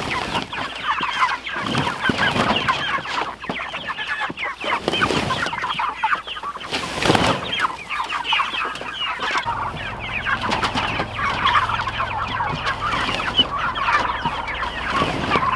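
A flock of meat chickens (broilers) clucking and chattering continuously, many birds at once. There is a brief louder noise about seven seconds in.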